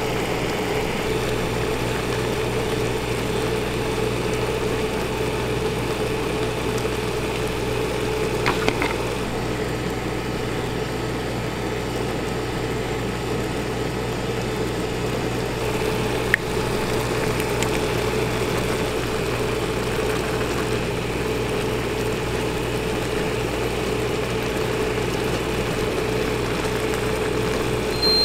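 Steady mechanical hum of a ramen cooking machine heating a pot of ramen, with a couple of light clicks.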